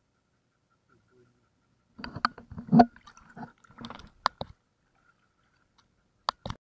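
Water sloshing and splashing right at a camera held at the water's surface: a cluster of wet slaps and clicks starting about two seconds in and lasting some two and a half seconds, then two sharp splashes near the end.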